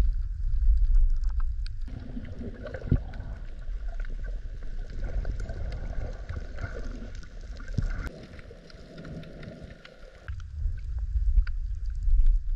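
Underwater sea sound among rocks: low rumbling of surge surging through a rock crevice, swelling near the start and again near the end, with scattered faint clicks and crackles.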